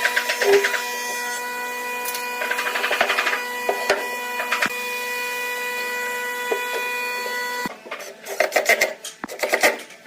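A small power tool's motor running with a steady whine, with rough rasping bursts as it works wood. The motor cuts off about three quarters of the way through, and short quick scraping strokes on wood follow.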